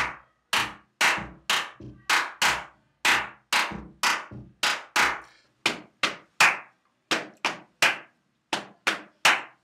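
Hand claps in a counted clapping routine: a steady beat of about two claps a second, turning about halfway through into a choppier pattern of paired claps. Each clap rings out briefly.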